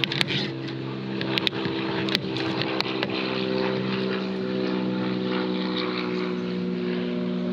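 Several sharp clicks and snaps in the first three seconds as a small Pelican hard-shell wallet case is unlatched and opened, over a steady engine drone that shifts slightly in pitch about three seconds in.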